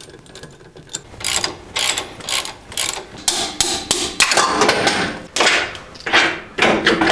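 Socket ratchet working a suspension bolt on a Toyota 4Runner's rear lower control arm, clicking in repeated strokes with metal-on-metal clanks from the wrench and the arm. The strokes are a little under two a second and start about a second in.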